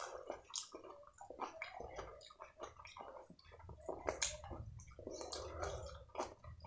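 Wet, squishy sounds of eating saucy fried rice and chilli paneer by hand, close up: sticky rice squelching and clicking under the fingers in quick, irregular clicks.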